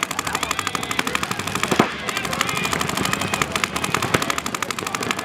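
Paintball markers firing rapid, evenly spaced streams of shots that stop shortly after the end.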